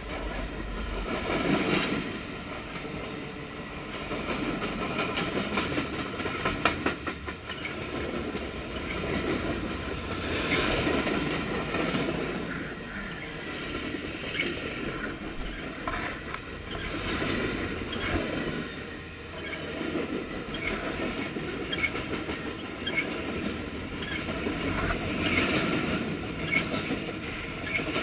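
Freight train cars rolling past close by, steel wheels clattering and clanking on the rail. The sound swells and eases every couple of seconds as each set of wheels goes by.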